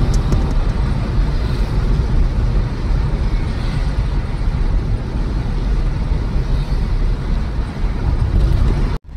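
Steady road and engine noise of a Tata Nexon petrol SUV driving on the highway, heaviest in the low end. It cuts out suddenly for a moment near the end.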